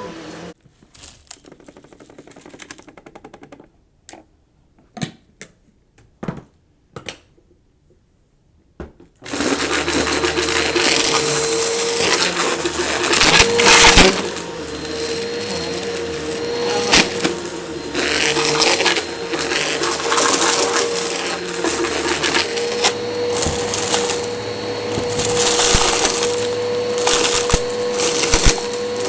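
Eureka vacuum cleaner cut off at the start, then scattered clicks and knocks for several seconds. It switches back on about nine seconds in and runs with a steady whine, crunching and crackling as debris is sucked up along the edge of the floor.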